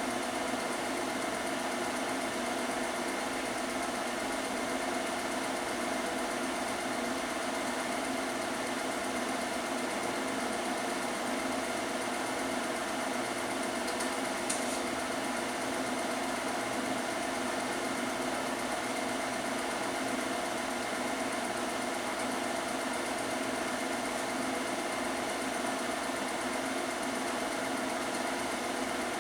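Steady mechanical whirr of a running film projector, even throughout, with one faint click about halfway through.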